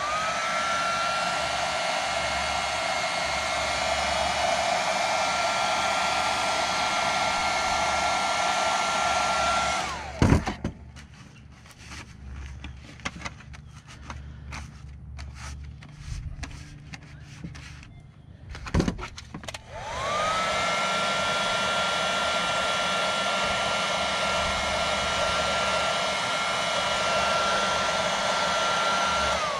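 Handheld electric heat gun blowing hot air, its motor whine rising as it starts and holding a steady high tone over the rush of air. It shuts off with a falling whine about ten seconds in, small handling knocks follow, and it starts up again about twenty seconds in.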